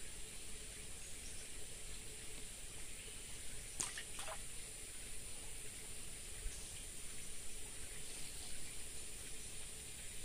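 Steady outdoor ambience at a forest pond: a continuous high hiss, with two quick falling chirps about four seconds in.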